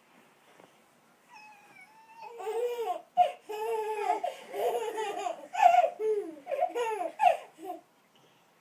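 Babies and a toddler squealing and babbling excitedly with laughter: a run of high-pitched calls that swoop up and down, starting a little over a second in and stopping shortly before the end.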